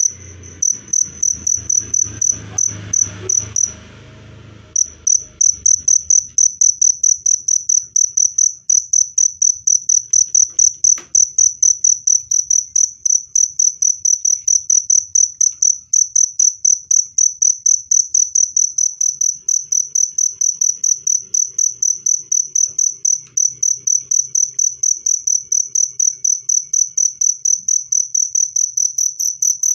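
A cricket chirping: a steady run of short, high-pitched chirps, about three a second, that stops for about a second some four seconds in and then goes on.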